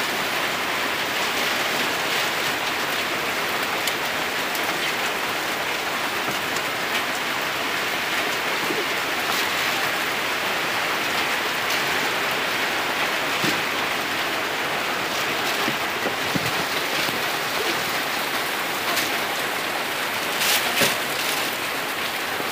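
Steady hiss of rain falling, mixed with a pan of snails in coconut milk bubbling at a hard boil. A few sharp clicks near the end.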